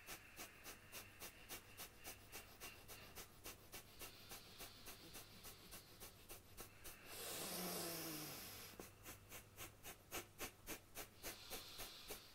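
Kapalabhati yoga breathing: rapid, forceful exhalations through the nose, about three short puffs a second. About seven seconds in, the puffs break for one longer, louder breath of over a second, then start again.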